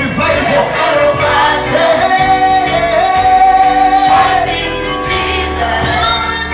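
Gospel worship song, sung voices over instrumental backing, with one long held note in the middle.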